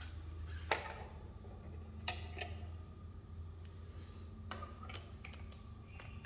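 A few light clicks and knocks of handling over a low steady hum, then a sharp click near the end as a power adapter plug is pushed into a wall socket.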